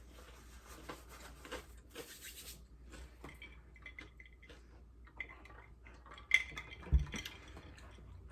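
Light clicks, taps and rustles of takeout food containers and utensils being handled, with two sharper knocks a little past six and seven seconds in.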